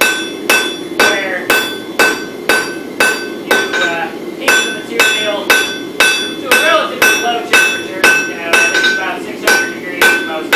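Hand hammer striking a red-hot bar of wootz crucible steel on an anvil, about two blows a second with a brief pause a few seconds in, each blow ringing.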